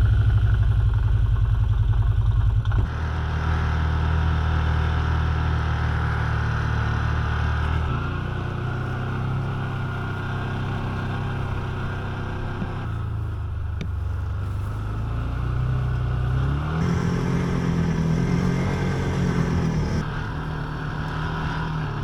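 UTV engine running under way, loudest for the first few seconds, its note shifting abruptly several times.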